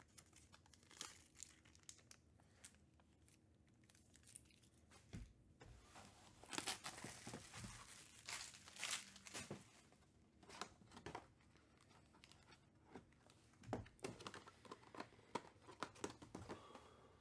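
Plastic wrapping crinkled and torn off a trading-card box, with scattered taps and scrapes of the box being handled on the table. It comes in irregular bursts, busiest about six to ten seconds in.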